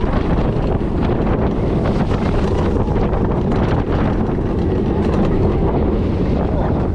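Roller coaster train running at speed on a steel track: wind buffeting the on-ride microphone over the steady rumble and clatter of the wheels.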